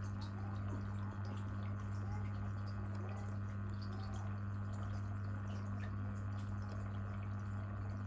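Aquarium pump humming steadily, with water trickling and faint dripping ticks.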